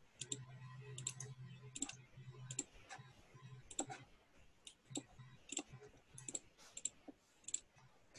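Faint, unevenly spaced clicks, about one or two a second, over a faint low hum that comes and goes, picked up over a video call.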